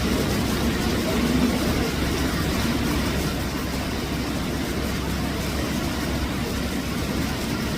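A steady low rumble under an even background noise, without a break.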